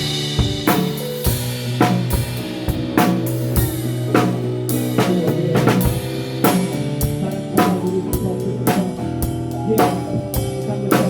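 Live worship band playing an instrumental passage: a drum kit keeps a steady beat on bass drum and snare under sustained chords and bass notes.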